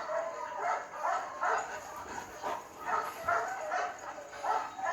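Dog yipping and barking in a quick series of short, high calls, about two a second.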